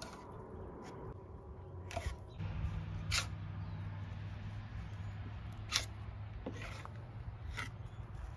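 A putty knife scraping and tapping as it spreads thickened-epoxy fairing compound onto a fiberglass boat hull, with four short sharp scrapes or taps spaced a second or two apart. A steady low hum runs underneath.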